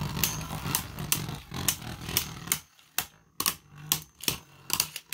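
Two spinning Beyblade Burst tops clashing in a plastic stadium: a run of sharp, irregular clicks as they strike each other and the walls, over a low whirr of the tops spinning on the floor that drops away about halfway through.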